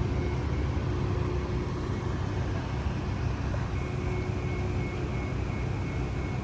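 Steady low rumble of outdoor background noise with a faint steady hum, without distinct events.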